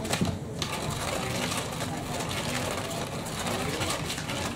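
Battery-powered cat toy's small motor running with a rhythmic whirring clatter as it sweeps a mouse-tipped wand round under its fabric skirt; it drops back briefly at the start and picks up again about half a second in.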